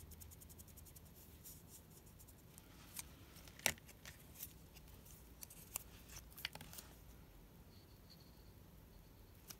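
Cardstock paper strips being handled, curled around a marker and set down on a cutting mat: faint scattered clicks and paper rustles, with one sharper click a little before the middle.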